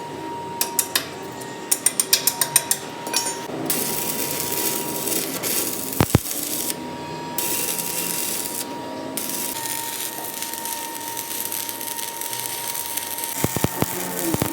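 Metal lathe running with a steady whine, while a tool works the steel truck axle: rapid clicking early on, stretches of rasping hiss and one sharp knock about six seconds in.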